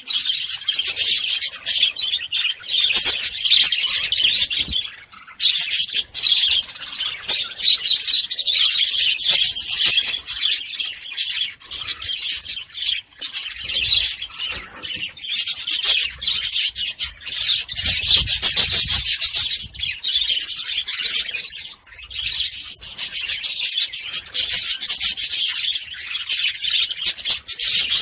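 Lovebirds chattering: a dense, continuous stream of rapid, raspy high-pitched chirps, broken by a few brief pauses.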